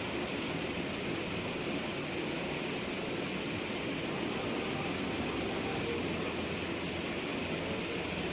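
Steady, even background noise: a constant hiss and rumble with nothing else standing out.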